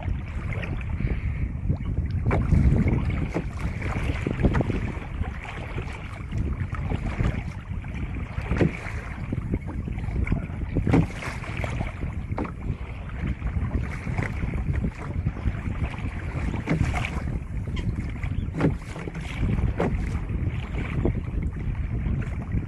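Wind buffeting the microphone on a fishing kayak at sea, a steady rumble, with water against the hull and scattered sharp clicks and knocks throughout.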